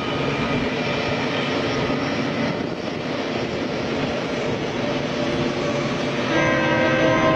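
Long freight train running with a steady rumble. About six seconds in, a diesel locomotive's air horn starts, a chord of several steady tones that is louder than the rumble.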